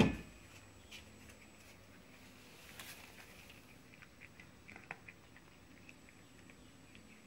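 A domestic cat eating food scattered on a carpet: faint crunching and small clicks, clustered about four to five seconds in.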